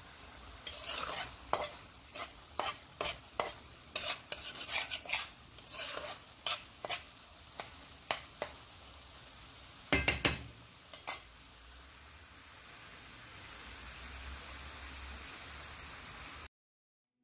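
Metal spatula scraping and knocking against a frying pan as minced meat is stirred, over a steady sizzle of the mince frying. The strokes come about once or twice a second, loudest around ten seconds in, then stop about eleven seconds in, leaving only the sizzle, which cuts off suddenly near the end.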